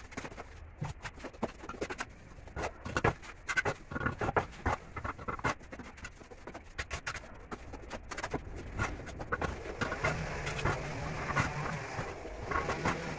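Steel mason's trowel scraping mortar and knocking hollow clay bricks down into their mortar bed as a brick wall is laid: a run of irregular sharp taps and scrapes. About ten seconds in, the low hum of a vehicle engine rises underneath.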